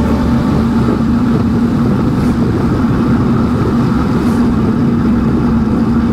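Steady wind rush on the microphone and tyre rumble from a bicycle riding through a concrete tunnel, with a constant low hum under it.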